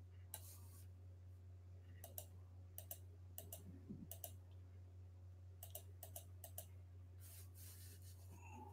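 Faint, scattered clicks from working a computer mouse and keyboard, some in quick little runs, over a steady low hum.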